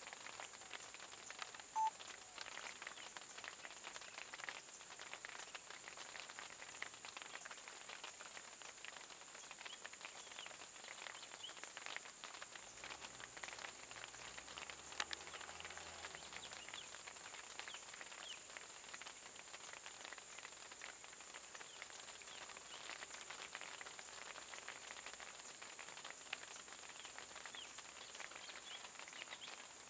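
Quiet rainy outdoor ambience: a steady high-pitched insect drone over light, scattered pattering of rain. A single short high chirp comes about two seconds in, and a faint low hum is heard for a few seconds around the middle.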